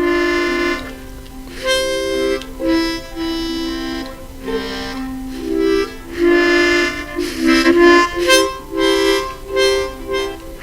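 Instrumental music: a melody played on a free-reed instrument, in notes that change about every half second.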